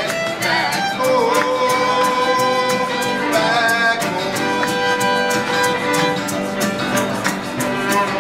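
Live folk band playing an instrumental passage: a fiddle carries a held, gliding melody over a steady, quick rhythm.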